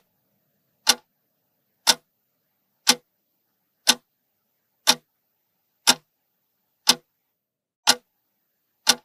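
Ticking-clock sound effect: nine single, sharp ticks, one each second, with silence between them, counting down a ten-second answer timer.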